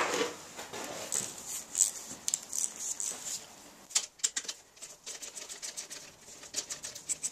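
Socket ratchet clicking as it backs out an 8 mm bolt on a motorcycle exhaust silencer can: scattered clicks at first, then a quick run of about five ticks a second near the end.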